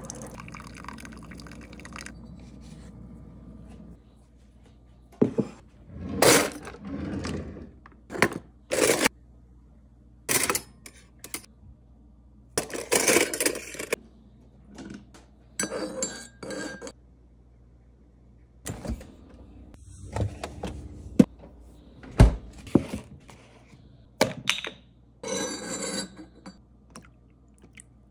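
A Keurig coffee maker finishes dispensing into a ceramic mug for the first few seconds. Then comes a run of kitchen handling noises: cutlery rattling in a drawer, knocks of a spoon and a creamer bottle on the counter, and a metal spoon clinking against the ceramic mug while stirring.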